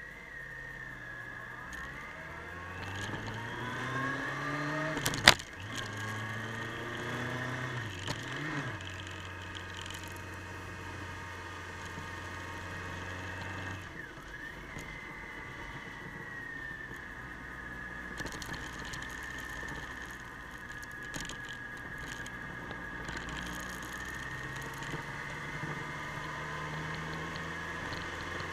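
Motorcycle engine accelerating with its pitch rising twice, then running steadily at cruising speed. A single sharp knock about five seconds in.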